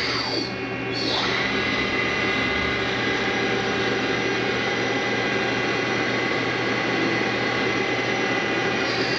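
Mazak Quick Turn 8N CNC lathe running under power: a steady mechanical whine made of several constant tones, with a short dip in the sound just under a second in.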